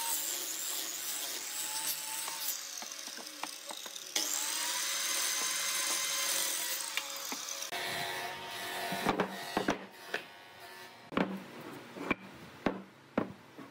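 Wood lathe running with a tool cutting into the spinning wood: a steady rasping scrape over a motor whine. About eight seconds in the cutting stops, and a handful of separate knocks and taps follow.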